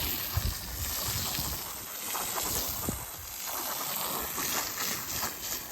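Water spraying from a low-pressure garden hose, a steady hiss that swells and dips as the stream moves.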